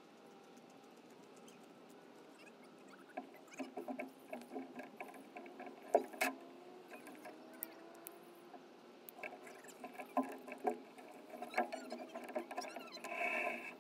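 Footsteps, bumps and knocks on a small flat-decked fishing boat as people climb aboard and move gear on the deck. It is quiet for the first few seconds, then irregular thumps and clatters follow, with a sharp knock about six seconds in.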